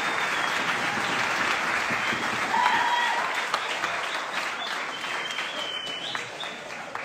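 Audience applauding, with some voices and short shouts over the clapping; the applause gradually dies down toward the end.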